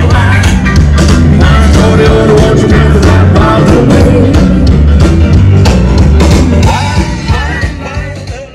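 Background rock song with singing and a steady beat, fading out near the end.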